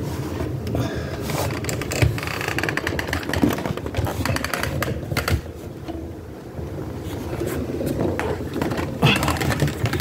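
Scraping and rustling with many small clicks and knocks as a door weatherstrip is handled and pressed into place at the bottom of a door.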